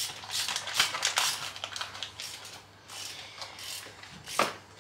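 Irregular clicks and rustles of car parts and packaging being handled, with a sharper click about four and a half seconds in.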